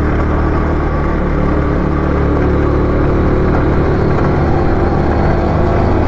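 Harley-Davidson V-twin motorcycle engine running at a steady pitch while riding along a gravel road.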